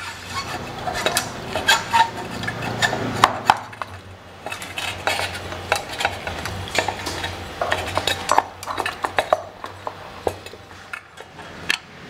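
Irregular metallic clinks, taps and scrapes as a copper pipe coil and its steel flange plate are handled and fitted into the element opening of a water heater tank, over a low steady hum.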